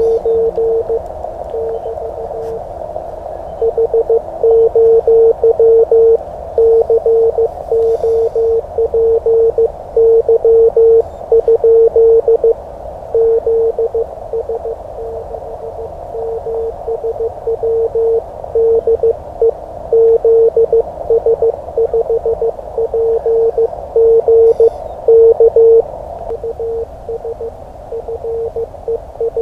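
Morse code (CW) from an amateur radio transceiver: a single mid-pitched note keyed in dots and dashes throughout, over a band of receiver hiss.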